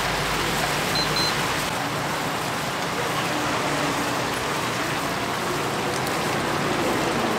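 Whole chickens deep-frying in a vat of hot oil: a steady sizzle.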